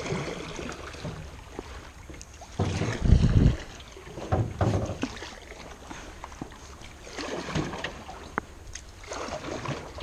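Canoe paddle strokes in still river water: a swish and splash each time the paddle dips and pulls, several strokes a few seconds apart. The loudest comes about three seconds in.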